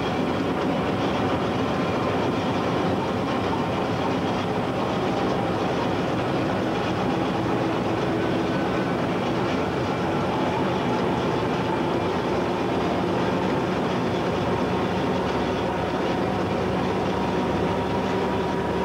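DSB class MH diesel-hydraulic shunting locomotive running along the line, heard from inside its cab: a steady drone from the engine and transmission, mixed with wheel-on-rail noise.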